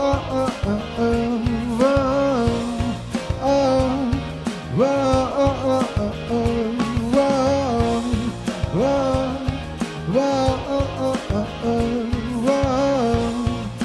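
Male singer singing a slow pop song live into a microphone over instrumental backing with a steady beat. His long-held notes slide up into pitch.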